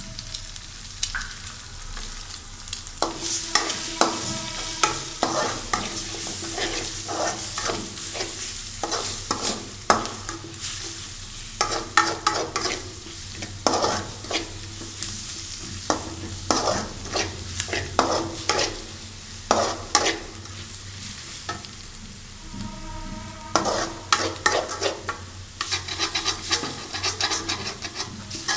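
Maggi noodles and egg frying in a pan, sizzling steadily, while a spoon stirs and scrapes against the pan in many irregular strokes.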